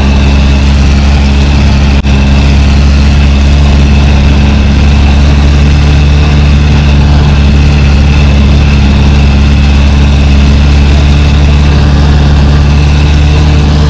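A vehicle engine running steadily on the move, a loud low drone heard from inside the cabin, briefly dipping about two seconds in.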